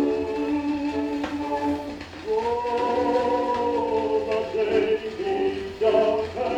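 Tenor singing on an old 78 rpm gramophone record, with a long held note a couple of seconds in, over a faint steady low hum from the record.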